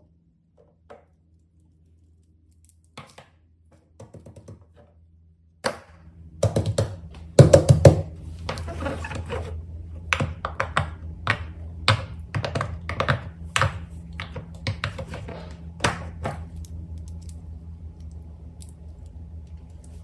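Fidget toys being handled: sharp clicks, taps and thunks, a few at first, then a busy run from about six seconds in, over a low steady hum.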